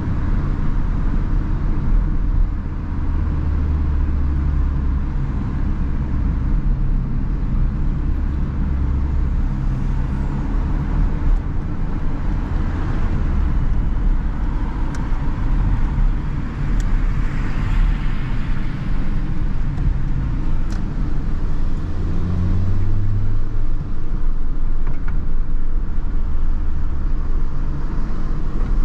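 First-generation Toyota Yaris heard from inside the cabin while driving: its engine runs under a steady haze of tyre and road noise. The engine note shifts as the car slows and speeds up, with a rising pull about two-thirds of the way through.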